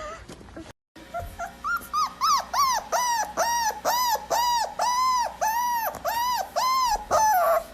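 A dog giving a long run of high-pitched whining cries, each rising and falling, starting short and soft and building into about two or three evenly spaced cries a second.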